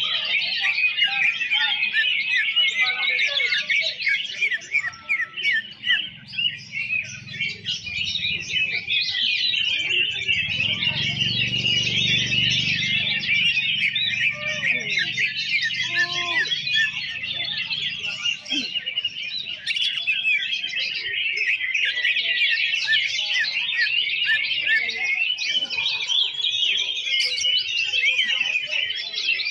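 Many caged greater green leafbirds (cucak ijo) singing and chirping at once, a dense, continuous high twittering chorus with no break. A low rumble swells briefly under it near the middle.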